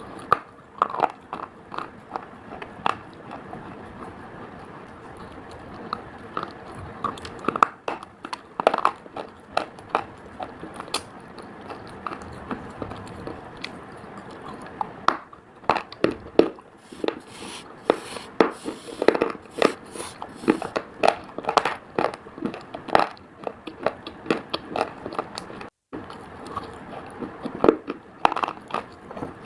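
Close-up biting and chewing of hard, brittle slate pieces: many irregular sharp crunches and crackles, busiest in the middle stretch.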